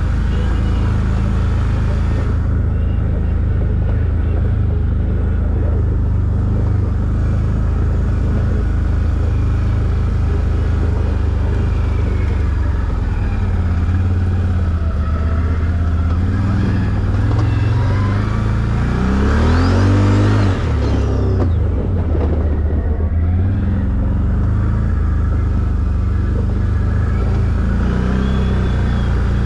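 Quad bike (ATV) engine running at low speed on a rough trail, with one brief rev that rises and falls in pitch about two-thirds of the way through.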